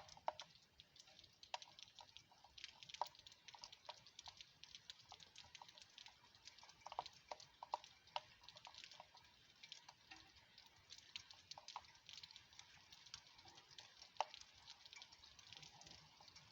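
Scattered raindrops pattering in faint, irregular ticks: the first drops at the start of a rain shower.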